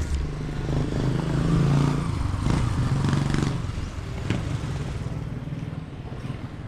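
An engine running steadily, growing louder and then easing off in the middle, with light clattering and one sharp click about four seconds in.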